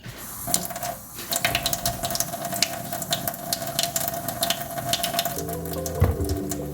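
Kitchen tap running into a sink while lemons are washed under it, with small knocks and clicks of handling. Background music comes in near the end.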